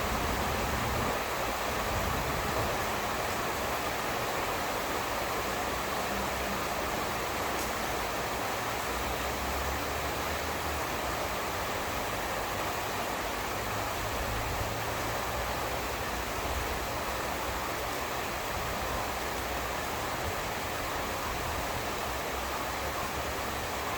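Steady downpour of rain during a thunderstorm, a continuous even hiss, with a low rumble that swells and fades underneath.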